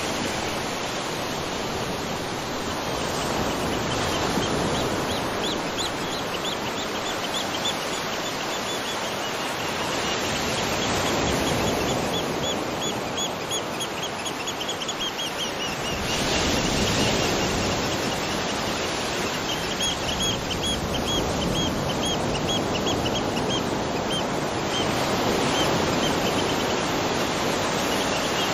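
Outdoor nature ambience: a steady rushing noise like wind or surf that swells and eases, with a small bird giving several runs of quick, high, repeated chirps, about four a second.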